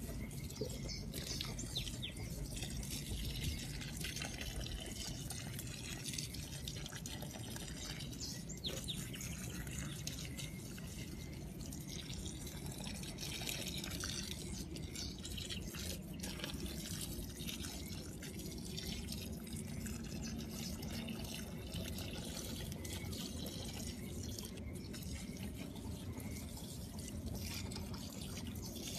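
Water pouring from a watering can's spout onto potting soil and plants in planter boxes, a steady trickle and splash.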